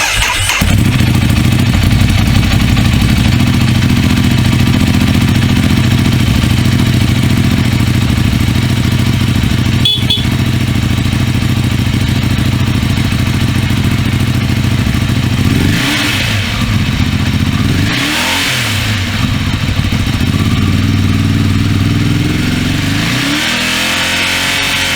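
Ducati Hyperstrada's 821 cc L-twin with its stock exhaust, starting up at the very beginning and running at a raised cold-start idle. The engine speed dips and recovers twice about two-thirds of the way through, and the idle slides down to a lower speed near the end.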